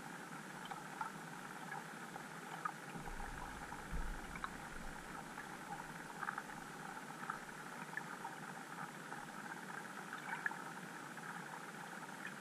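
Underwater ambience picked up by a camera in a waterproof housing: a steady hiss with scattered faint clicks and ticks, and a brief low rumble about three to four seconds in.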